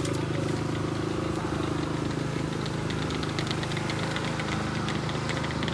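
High-street ambience: a vehicle's engine running at a steady idle nearby, with voices of passers-by and scattered light clicks.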